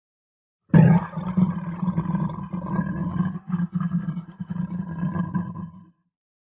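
A long, low, rough human vocal sound, about five seconds long, starting under a second in and cutting off near the end.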